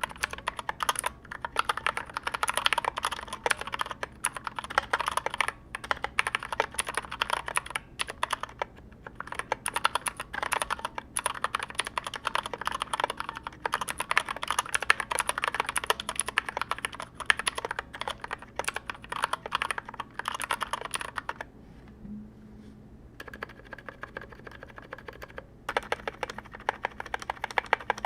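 Typing on a custom mechanical keyboard with 64 different switches, many of them frankenstein mixes, on a steel plate in a 3D-printed PLA case with ABS SA keycaps. Keys clack in fast, dense runs. About three-quarters through the typing stops for a second or two, then starts again more sparsely.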